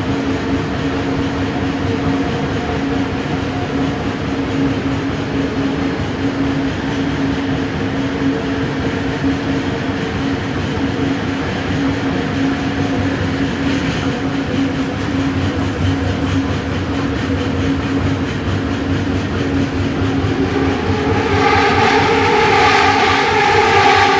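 Running noise heard inside a moving elevated metro train car: a steady rumble with a constant hum. Near the end a train passing close on the next track brings a louder rush with a higher whine.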